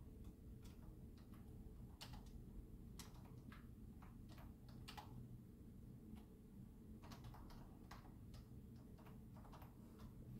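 Faint, irregular keystrokes of typing on an external computer keyboard, over a low steady room hum.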